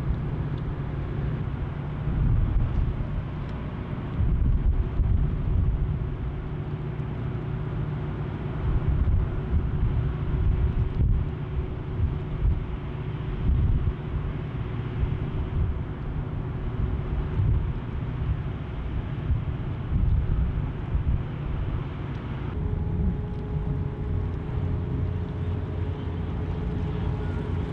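Wind buffeting the microphone in an uneven low rumble, over a faint steady hum of ships' machinery in the harbour; the hum changes to a slightly higher pitch near the end.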